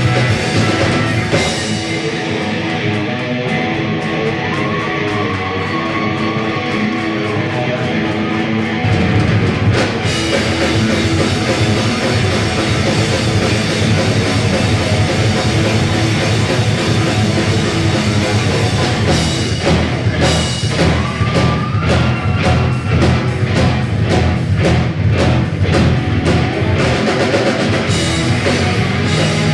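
Rock band playing live on electric guitar, keytar and drum kit, with no singing. The first nine seconds or so are a lighter passage of held notes, and then the whole band comes in harder with a heavy, steady drum beat.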